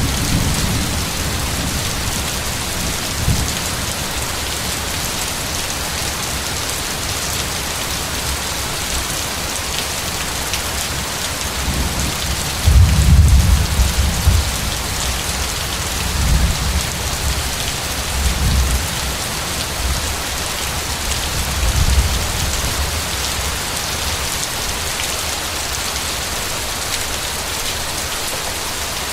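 Steady heavy rain hissing on a surface, with rolls of thunder rumbling low about halfway through, the loudest first and a few weaker rumbles after it.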